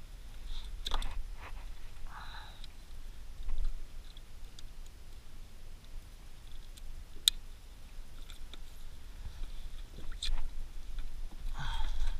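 Sparse small plastic clicks and handling noises from an action camera and its mount being fitted by hand, with two sharper clicks in the second half, over a steady low rumble.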